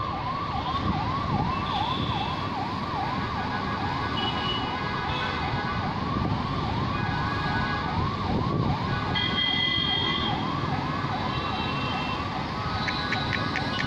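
Ambulance siren in a fast yelp, its pitch sweeping over and over at about three cycles a second, over a steady background rush of noise.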